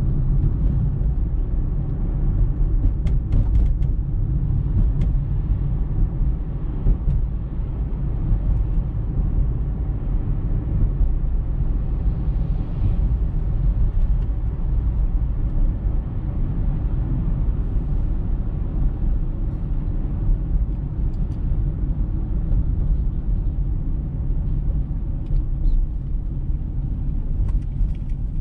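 Steady low rumble of a car driving on the road, heard from inside the car: engine and tyre noise, with a few faint ticks.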